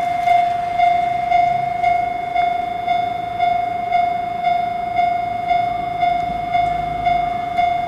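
Japanese railway level-crossing warning bell ringing: an even 'kan-kan' of about two strikes a second, each strike a ringing tone that fades before the next.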